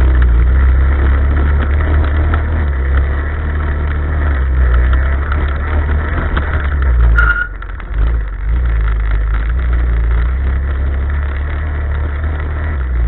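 Off-road motorcycle engine running while riding a dirt trail, with heavy wind rumble on the microphone; the engine eases off briefly about seven and a half seconds in, then pulls again.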